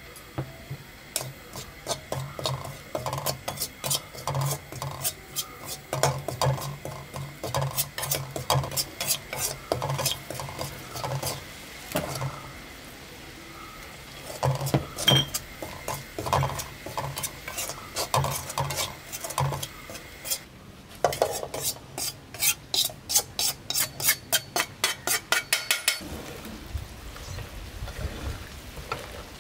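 Slotted metal spoon scraping and clinking against an aluminium kadai, stirring dry chilli and coriander powder in irregular strokes. The strokes then quicken to a fast, even scraping, about three a second, and stop a few seconds before the end.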